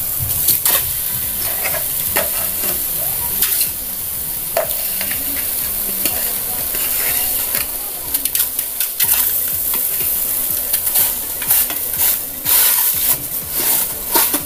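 A metal spoon scraping and clinking against a metal pan as thick ground fenugreek paste is spooned into it, in scattered clicks that come thicker in the second half, over a steady hiss.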